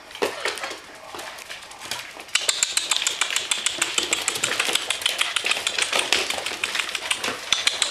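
Malamute puppies' claws clattering on a hardwood floor as they race and scuffle, a fast, dense run of clicks that starts about two seconds in.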